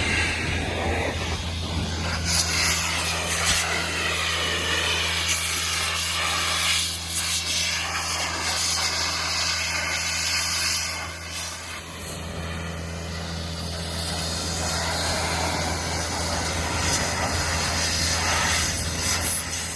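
Compressed-air blow gun hissing in long, uneven blasts as it blows crop debris off farm machinery, over a steady engine hum. The hum dips briefly a little under halfway through.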